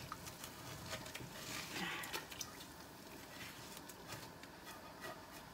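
Faint, scattered scrapes and light taps of a spatula scraping sautéed spice paste out of a frying pan into a pot of soup.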